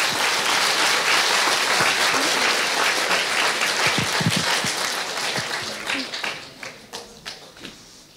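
Audience applause, a dense patter of many hands clapping that thins after about five seconds into scattered single claps and dies away near the end.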